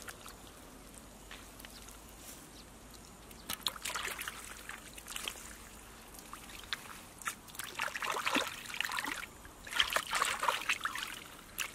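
Hands sloshing and splashing through shallow muddy water while groping in the mud by hand for fish. The splashing comes in irregular bursts, starting a few seconds in.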